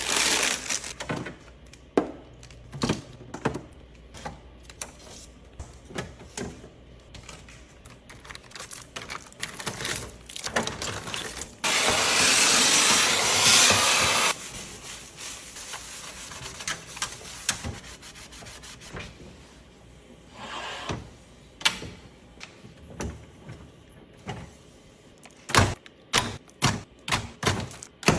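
Cleaning inside an emptied refrigerator: rubbing and scrubbing with scattered knocks and clatters. About halfway through there is a steady rush of noise for two or three seconds, and a quick run of sharp knocks comes near the end.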